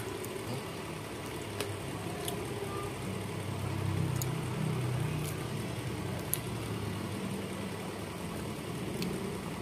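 Low steady mechanical hum, swelling a little about four seconds in, with a few faint clicks.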